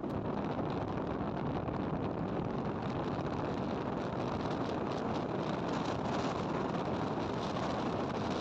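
Steady riding noise from a Hero Glamour motorcycle at low speed: wind rushing over the microphone, with the bike's 125 cc single-cylinder engine and tyres running underneath.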